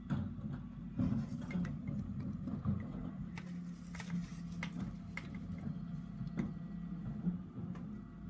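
Refuse truck working outside, heard muffled through a closed window: a low engine rumble with a steadier hum for a few seconds in the middle, and scattered sharp clicks and knocks.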